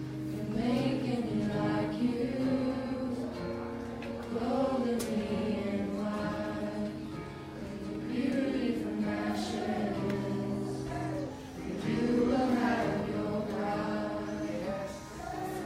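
A group of voices singing a slow worship song, holding long notes.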